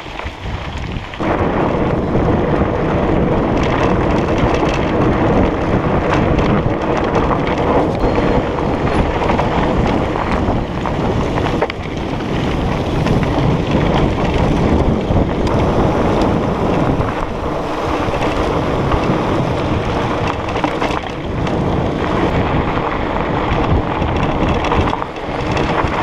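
Wind buffeting an action camera's microphone, with mountain bike tyres rumbling over a dirt and gravel track on a descent. The steady noise jumps up about a second in and stays loud.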